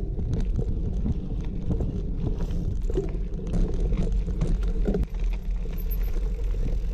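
A mountain bike rolling fast over a dirt singletrack, heard from a camera mounted on the bike: knobby tyres on dirt, with wind rumbling on the microphone and frequent knocks and rattles as the bike goes over bumps. There is a brief lull about five seconds in.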